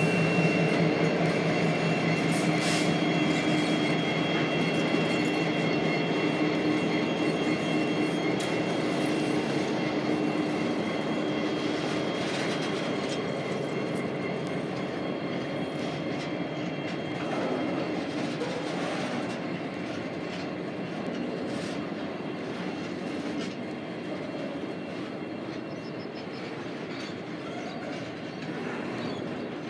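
Container freight train rolling past as it slows to stop. The hum of 81 class locomotive 8112's EMD two-stroke diesel fades over the first several seconds, leaving the steady rolling noise of the wagons with occasional wheel clicks over rail joints, gradually getting quieter.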